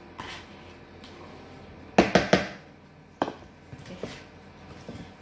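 Spatula knocking and scraping in a plastic tub while margarine, sugar and eggs are beaten by hand: three sharp knocks in quick succession about two seconds in, another about a second later, then lighter taps.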